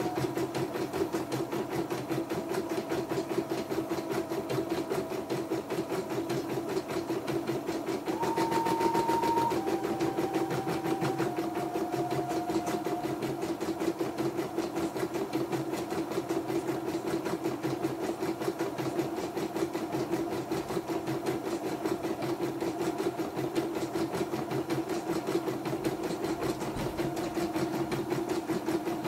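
YOKO portable computerized embroidery machine stitching steadily at a fast even rate. A thin whine runs with it and jumps between pitches in steps; it is louder and higher from about eight to nine and a half seconds in.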